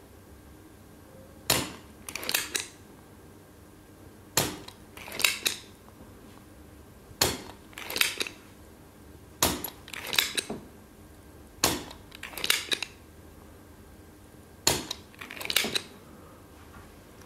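Spring-loaded desoldering pump (ZEL OD-25-series solder sucker with a Teflon tip) being fired and re-cocked over and over as solder is sucked from the pads. Each cycle is a sharp snap followed about half a second later by a quick clatter of clicks, six times at intervals of about two to three seconds.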